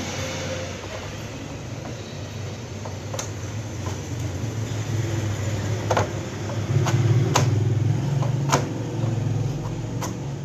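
Screwdriver prying and scraping along the plastic bezel of an LED TV, a steady grinding rub with several sharp clicks as the casing clips give. The rubbing grows louder about two-thirds of the way through.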